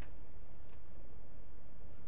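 Steady low background rumble, with one faint, short click less than a second in as the riser installation tool is worked in the mulch.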